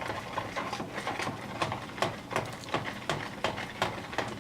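A spoon stirring thick pancake batter in a bowl, knocking and scraping against the bowl in irregular clicks, a few a second.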